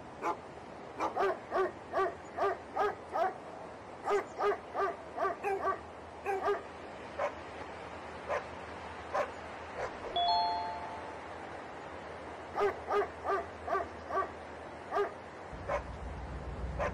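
A dog barking repeatedly in runs of several quick barks, two or three a second, with pauses between runs. About ten seconds in a short two-note chime sounds, and near the end a low rumble rises.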